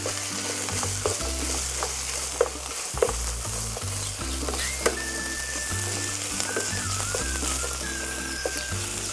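Cuttlefish rings, onion, bell pepper and spring onion sizzling in hot oil as they are stir-fried in a frying pan. A wooden spatula knocks and scrapes against the pan now and then.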